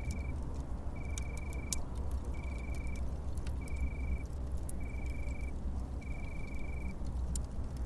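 Crickets chirping in short trills, one a little over every second, with scattered sharp crackles and pops from campfire embers and a steady low wind rumble underneath.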